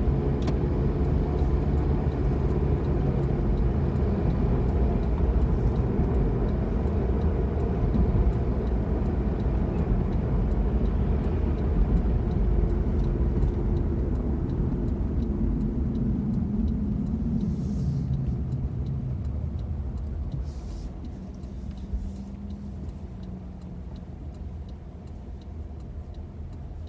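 Car driving with the windows closed, heard from inside the cabin: steady low road and engine rumble, which grows quieter over the last third as the car slows.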